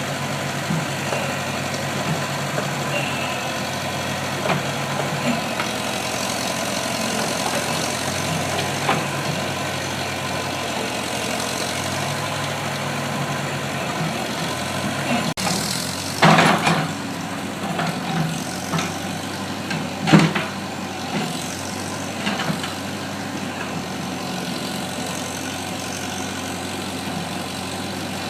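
Backhoe engine idling steadily. A little past halfway come two louder clanking knocks a few seconds apart.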